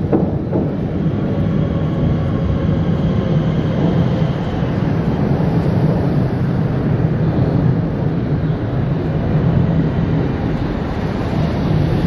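Night-time city street ambience: a steady low rumble of road traffic with a noisy background hum.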